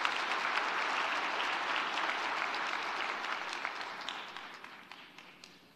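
Audience applauding, steady at first and then dying away over the last two seconds or so.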